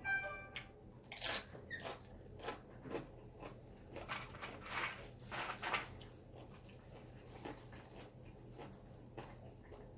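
Close-up biting and crunching of tortilla chips with cheese, a run of crisp crunches over the first several seconds that thins out into quieter chewing. A brief high-pitched squeak at the very start.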